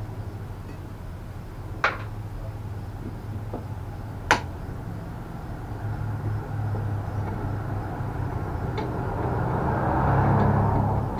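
Hand tools clicking against the plastic front cowl of a mobility scooter as it is unscrewed with a hex wrench: two sharp clicks a couple of seconds apart, a few fainter ticks, and a louder scraping rustle near the end, over a steady low hum.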